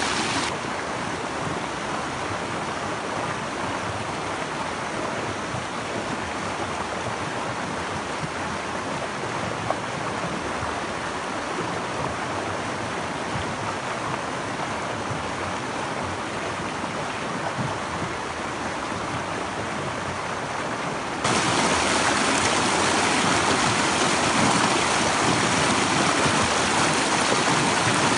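Shallow rocky mountain stream rushing and splashing over boulders and pebbles, a steady rushing of water. It steps up suddenly louder about three quarters of the way through, where the water pours over a boulder into white water.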